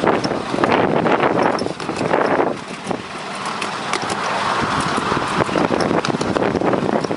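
Miniature railway train running, heard from on board: a steady rolling rush with irregular clicks from the wheels on the track, and wind on the microphone.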